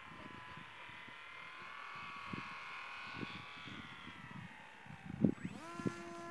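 Electric motor and propeller of a HobbyKing Bixler2 RC glider whining as it flies past, the pitch sliding slowly down as it fades away. A low thump comes about five seconds in. Just after it, a motor whine rises quickly in pitch and then holds steady.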